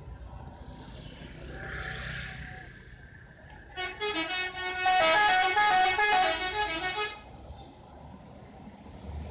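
Indonesian 'telolet' musical bus horn playing a quick tune of stepping notes for about three seconds, starting about four seconds in, over softer traffic noise.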